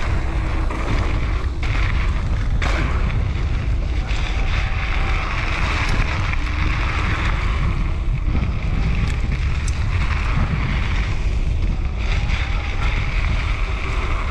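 Wind buffeting the microphone of a mountain bike's on-board camera on a fast descent, over the steady rush of knobby tyres rolling on a dry dirt trail, with a few sharp knocks from the bike over bumps.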